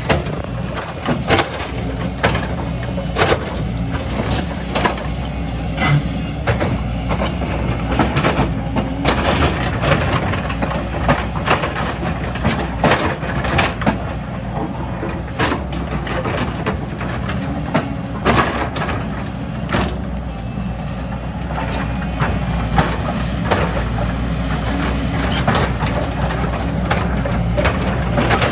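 Excavator's diesel engine running steadily, with frequent sharp clanks and knocks from the bucket and rock scattered throughout.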